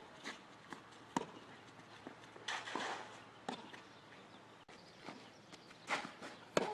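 Tennis ball knocking sharply against racket and court, about seven separate knocks, the loudest near the end, with footsteps on the court.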